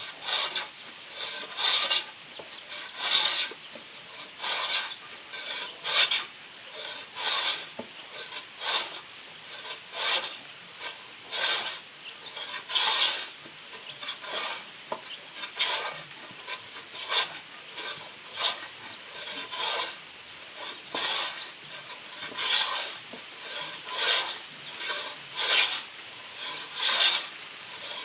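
Manual wooden hand plane pushed over wood in steady, repeated strokes, about one every second and a half, each a dry scrape as the blade takes off a shaving.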